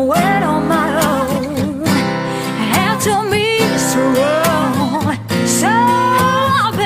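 Acoustic guitar accompanying a singer's wavering, wordless-sounding vocal runs, ending on a long held note near the end.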